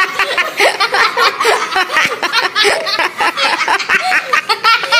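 Overlapping people's voices with chuckling and laughter.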